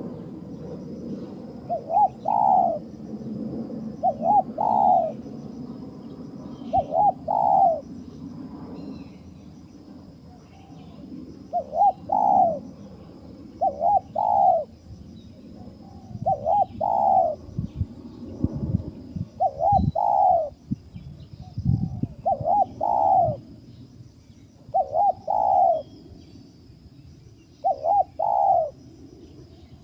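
Spotted dove cooing: a short phrase of two or three quick rising notes, repeated every two to three seconds, with a low rumble underneath.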